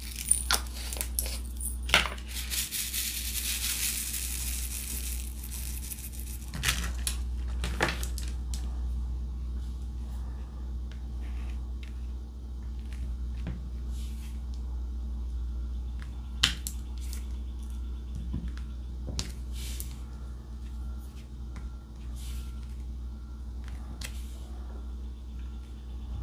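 Diamond painting: plastic resin drills clicking and rattling in a plastic drill tray and the drill pen tapping them onto the canvas, in scattered small clicks, with a denser rattle a few seconds in. A steady low hum runs underneath.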